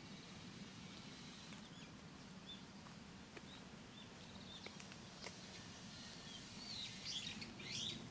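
Small birds chirping faintly, with a burst of quicker, sweeping calls near the end, over a steady low outdoor hum and a few scattered clicks.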